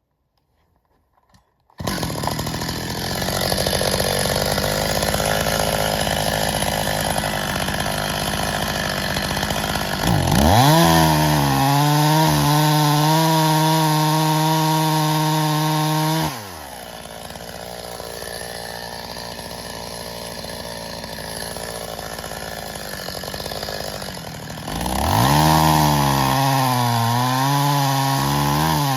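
Stihl MS 270 two-stroke chainsaw running at high revs. It cuts in abruptly about two seconds in, with a rough, steady sound. Near the middle the engine pitch climbs and holds high and steady, then drops sharply to a lower, quieter running for several seconds before revving up again near the end with a wavering pitch.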